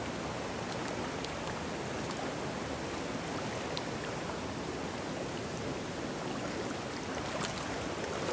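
Steady rush of a rocky mountain stream flowing over boulders, with a few faint ticks.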